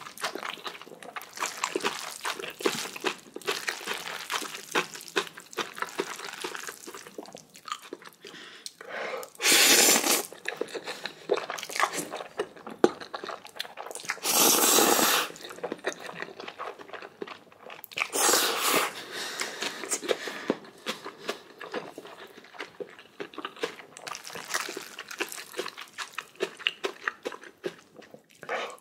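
Close-miked chewing and crunching of Chapagetti black bean noodles and spicy kimchi: a steady run of small crackles and wet chewing. Three loud slurps of noodles, each under a second, come about ten, fifteen and eighteen seconds in.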